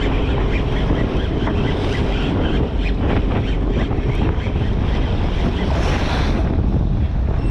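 Wind buffeting the microphone over seawater splashing and rushing along a boat's hull, with a louder rush of spray about six seconds in.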